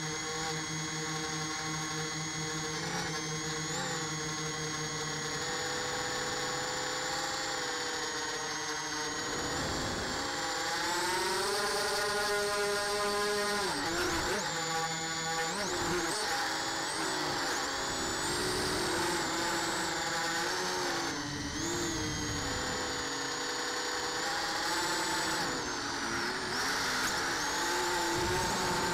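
Small drone's electric motors and propellers whining steadily, the pitch sweeping up and down several times partway through as it manoeuvres.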